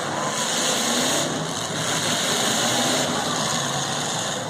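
Engines of the demolition derby cars running together in a steady din.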